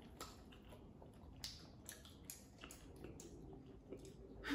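Faint, close chewing with scattered small clicks from the mouth, as a mouthful of chicken is eaten.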